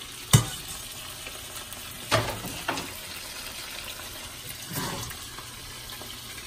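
Swai fish fillets frying in a skillet, a steady sizzle, with a few sharp knocks of a pot and utensils on the stovetop.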